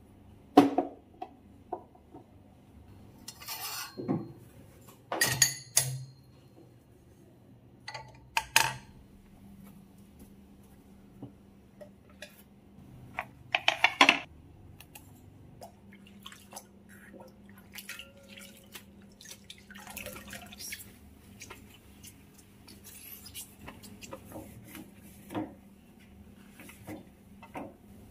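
Kitchen things being handled on a countertop: scattered knocks and clatter as a plug cord, wooden cutting boards and a wire rack are picked up and set down, loudest about fourteen seconds in, then softer rubbing as a cloth wipes the counter.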